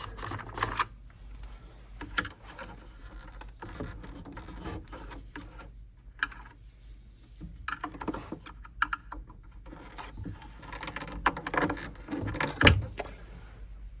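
Scattered small clicks, taps and scrapes of a tool being worked under a stuck knob on an old tube radio to pry it off, with a louder run of knocks near the end.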